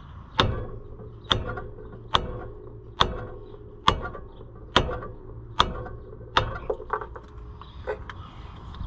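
Hammer blows on a wood block held against the stuck piston of a 1980 Harley-Davidson golf cart's single-cylinder engine, trying to drive the seized piston down the bore. Eight hard, evenly paced strikes a little under a second apart, then a few lighter knocks near the end.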